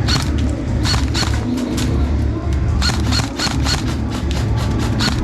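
Airsoft gun shots: about a dozen single sharp cracks fired at irregular intervals, over a steady low rumble.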